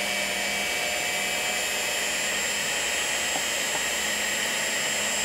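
Electric hand mixer running at a steady speed with a high whine, its beaters mixing cake batter.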